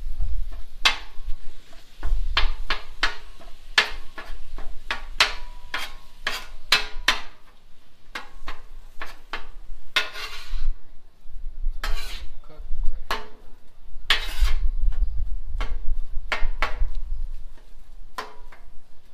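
A metal spatula chopping and scraping ground beef on a Blackstone griddle's steel cooktop: irregular sharp taps and clicks of the blade on the steel, with a few longer scrapes. A low rumble comes and goes underneath.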